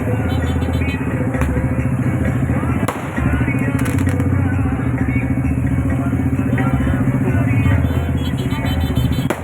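Engines running steadily and close by, with voices and a few sharp cracks about one and a half, three and four seconds in.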